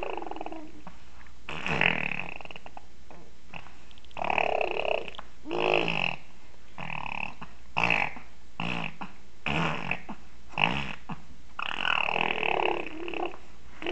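A baby making grunting, buzzing vocal noises in short bursts, about a dozen of them with brief pauses between, the longest about a second and a half near the end.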